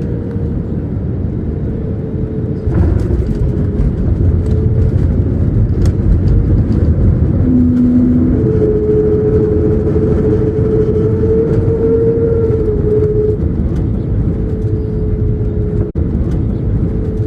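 Airbus A321neo jet engines on a landing airliner, a loud steady rumble with a faint held tone that steps up in loudness about three seconds in.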